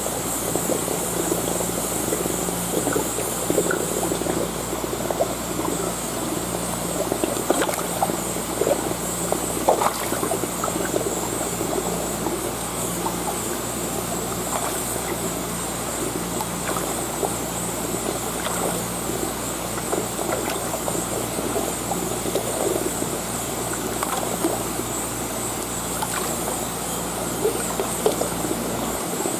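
Water trickling and splashing in a fish tank, with many small splashes as fish snatch pieces of fish fillet at the surface, over a steady low hum.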